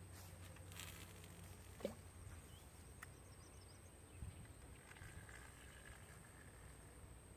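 Near silence: faint outdoor background with a low hum and a couple of faint clicks.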